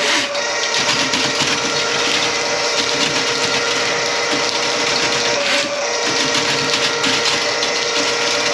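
Electric drain-cleaning machine running steadily while clearing a grease-clogged kitchen drain line, its motor giving a loud, even whir. The pitch dips briefly about five and a half seconds in, then recovers.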